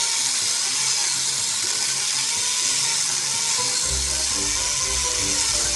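Angle grinder fitted with a chainsaw attachment cutting through a mango tree trunk, a steady high hiss with the motor's pitch wavering under load. Background music plays along, its bass line coming in about four seconds in.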